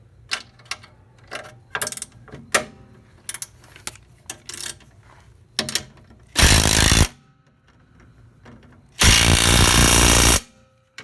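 Light metallic clicks and clinks of tools and sockets, then an impact wrench hammering twice: a short burst and then a longer one, snugging a sway bar mounting bolt until it is tight.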